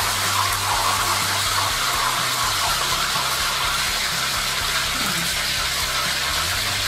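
Hot oil sizzling steadily in a cast-iron frying pan as the last fried meat pies are lifted out, with a low hum underneath.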